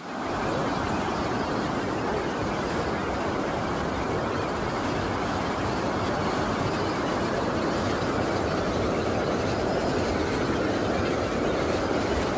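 Stream water rushing over rocks in a small whitewater cascade: a steady, loud rush.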